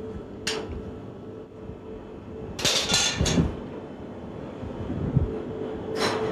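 Metal utensils and a steel ring mould clinking and scraping against a porcelain plate. There is one knock about half a second in, a quick cluster of clatters around the middle and another near the end, over a steady low machine hum.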